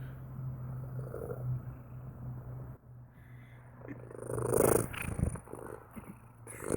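Domestic cat purring: a steady low rumble that drops out briefly partway through, then swells louder twice, once past the middle and again near the end.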